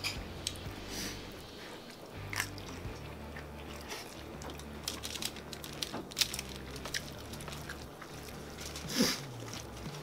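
Close-up eating sounds: biting and chewing mouthfuls of a burrito, with scattered sharp clicks and scrapes of a fork digging into the filling on tinfoil.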